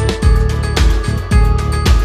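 Background music with a steady beat, about two beats a second, over held synthesizer-like tones.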